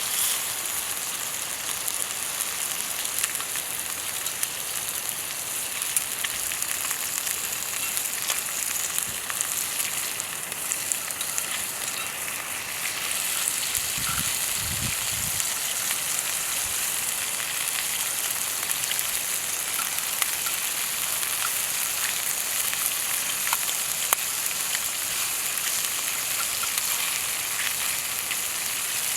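Food frying in a skillet over a campfire: a steady sizzling hiss with many small crackles and pops.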